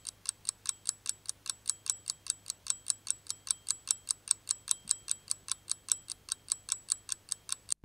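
Rapid, even ticking, about five short ticks a second, stopping abruptly near the end.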